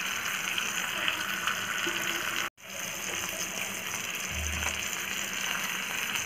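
Masala-marinated fish shallow-frying in hot oil: a steady sizzle of bubbling oil, cut by a brief dropout about two and a half seconds in.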